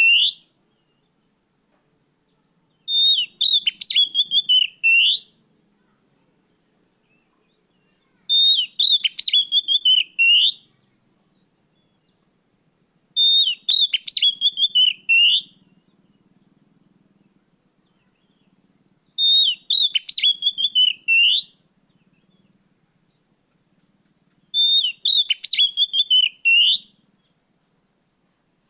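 Oriental magpie-robin (kacer) singing. The same short whistled phrase of quick notes, ending in a rising sweep, repeats about every five and a half seconds, with pauses between.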